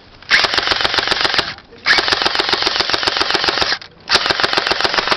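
Airsoft electric machine gun firing on full auto in three long bursts, a fast rattle of shots with short gaps between bursts.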